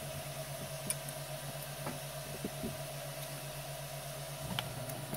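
Steady low hum of a Qidi X-One 2 3D printer's fans while it warms up, with a faint hiss; the hum steps down slightly in pitch about four and a half seconds in. A few faint, short clicks of handling are scattered through it.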